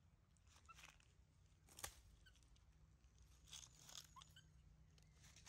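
Near silence with faint rustling of dry leaf litter and a few soft ticks as a baby monkey moves about, and one sharper click a little under two seconds in.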